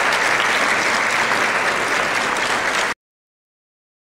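Audience applauding steadily in a hall, cut off abruptly about three seconds in, followed by silence.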